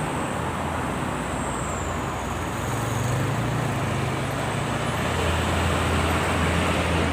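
Toll-road traffic passing: steady tyre and road noise with the low drone of heavy vehicles' engines, which deepens partway through.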